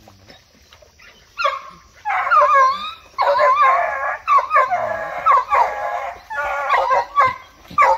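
American foxhound hunting dogs baying in long, wavering howls, one call running into the next, starting about a second and a half in.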